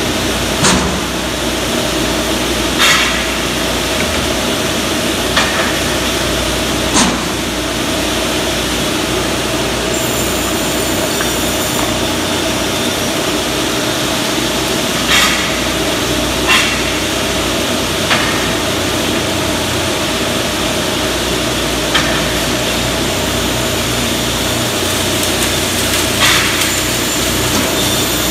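Finger jointing line running: a steady machine hum with sharp knocks of wooden blocks about every two to three seconds, irregularly spaced.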